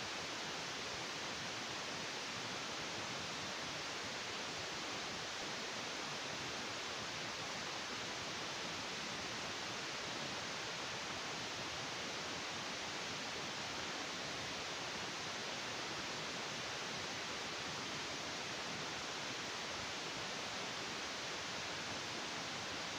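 Steady, even hiss of noise, unchanging in level throughout, with no other sound in it.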